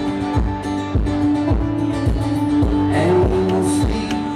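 Two acoustic guitars strumming chords in a steady, even rhythm: a short instrumental passage of a live song.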